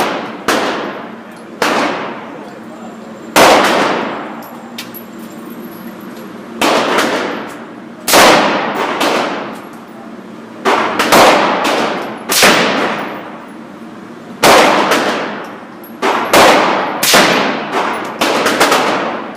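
Rifle shots fired one at a time at an uneven pace, more than a dozen in all, some in quick pairs near the end. Each shot has a sharp crack followed by a long echoing decay.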